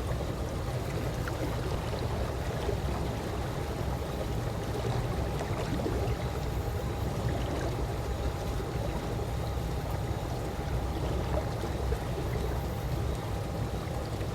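Calm pool water moving gently: a steady, even wash of water with a low rumble underneath and no distinct splashes.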